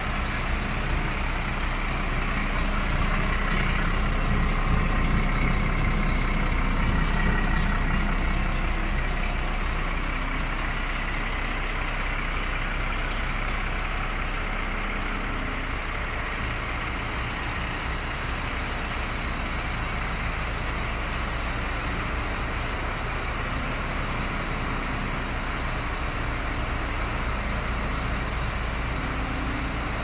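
DAF CF75.310 truck's diesel engine idling steadily, a continuous low hum that swells slightly in the first few seconds and then holds even.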